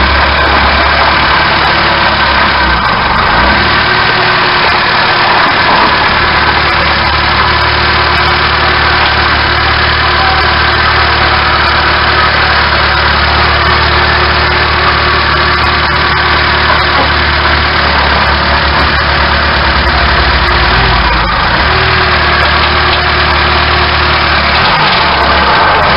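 A car driving along, heard from a camera inside its front wheel well: a loud, steady rumble of tyre, road and running gear, with little change throughout.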